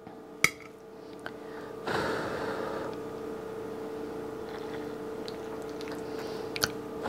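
A fork clinks sharply on a dinner plate about half a second in and again near the end, as food is picked up from the plate. A steady hum with a hiss runs underneath and grows louder from about two seconds in.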